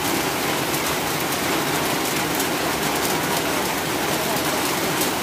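Heavy rain pouring steadily: a dense, even hiss with faint scattered sharp drop ticks.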